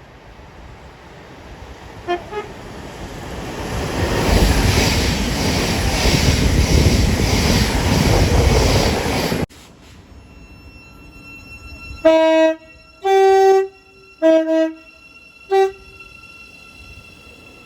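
A train rumbling past, getting louder, with two brief faint horn toots early on; the rumble cuts off abruptly. Then a train's two-tone horn sounds four short blasts, alternating low and high notes.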